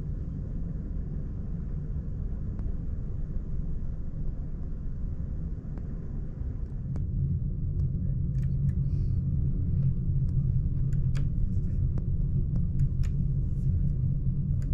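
Steady low rumble of the ferry Ishikari's engines and hull, heard inside a passenger cabin while under way, growing louder about halfway through. Light clicks dot the second half.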